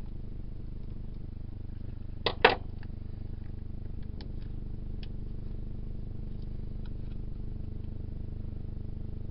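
Two sharp clicks of hard plastic parts being handled and pressed together, about two seconds in, followed by a few faint small ticks as a drill's plastic battery module is worked by hand. A steady low hum runs underneath.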